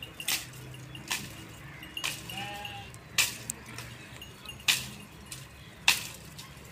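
About six sharp cracks spread roughly a second apart as dry branches are broken and pulled from a brushwood pile. A short goat bleat comes about two seconds in.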